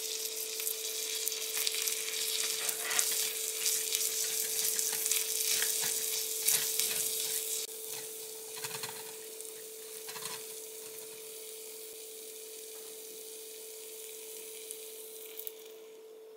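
Onion and flour sizzling in a miniature cast-iron pan while a small spatula stirs and scrapes through them. The sizzle is loudest in the first half, weakens, and dies away near the end, with a faint steady tone underneath.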